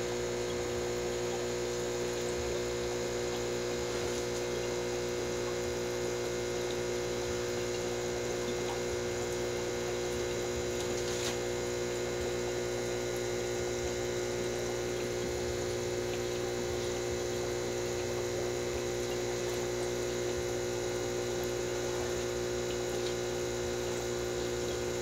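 Steady hum of an aquarium pump, with a constant sound of moving water.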